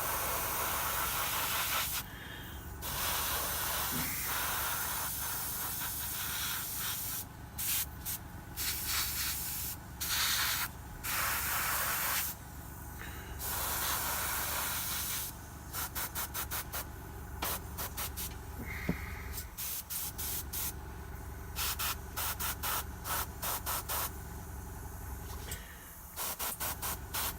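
Airbrush spraying paint in bursts of hiss as the trigger is pressed and released: longer bursts at first, then many short, quick ones in the second half, over a steady low hum.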